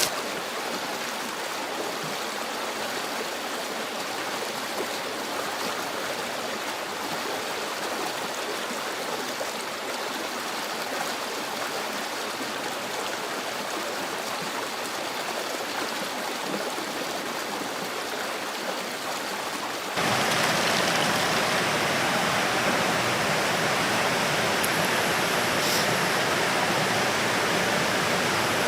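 Steady rushing water noise with no distinct events; about two-thirds of the way through it jumps abruptly to a louder, brighter take of the same kind of sound.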